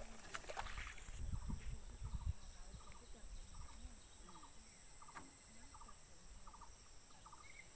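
Low rumble and a few knocks in the first two seconds, then quiet field ambience: a steady high-pitched whine with a faint chirp repeating roughly twice a second.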